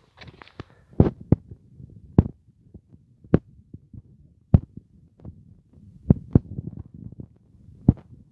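Footsteps on an asphalt road: sharp, irregular thuds about once a second, some in quick pairs, over a low rumble.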